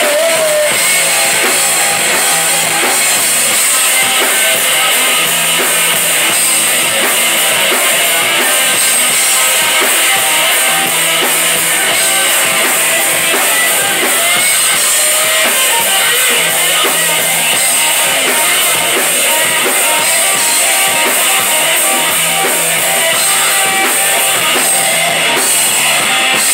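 Live rock band playing loud and steady: electric guitars over a drum kit.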